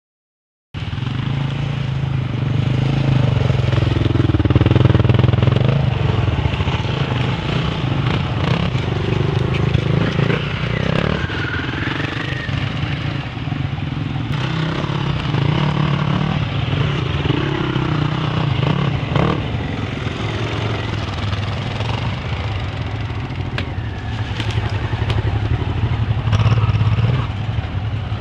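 Several enduro dirt-bike engines running and revving as the motorcycles ride past one after another. The sound starts abruptly about a second in.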